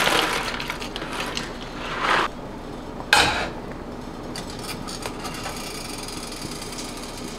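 Dry penne poured from a box into a stainless saucepan of boiling water, with a sharp knock about three seconds in. Then a wooden spoon stirs against the pan over the bubbling water.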